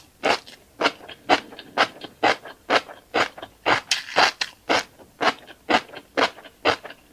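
Close-miked chewing of a mouthful of tiny black seeds: crisp, even crunches, about two a second.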